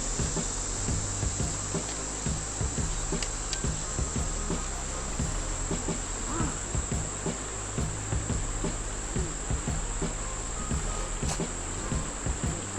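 Insects singing in one steady, unbroken high-pitched drone, over a low rumble and scattered soft knocks.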